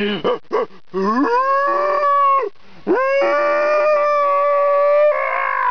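A man imitating a moose call with his voice: two long drawn-out calls, each sliding up in pitch and then held steady for one to two seconds.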